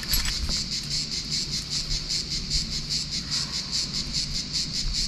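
Cicadas singing in chorus: a high, buzzing song pulsing evenly at about eight pulses a second.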